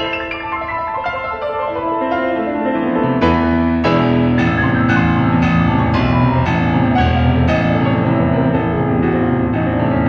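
Solo piano playing classical music: a lighter passage that builds, about three seconds in, into loud, full chords with deep bass notes.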